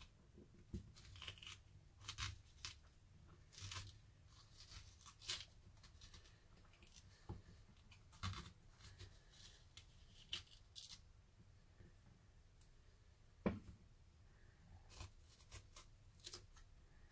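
Spoon scraping the seeds and flesh out of a halved zucchini against a plastic cutting board: faint, short, irregular scraping and tearing strokes, with one sharper knock about thirteen seconds in.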